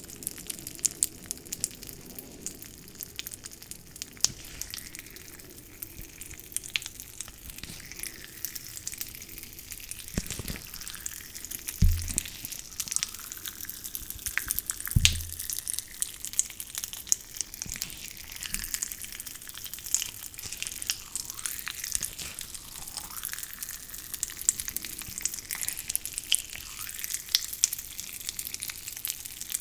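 Play-Doh Slime mixed with strawberry Pop Rocks being squeezed and stretched by hand close to a microphone: dense fine crackling and popping with sticky squishing. A few dull knocks come near the middle.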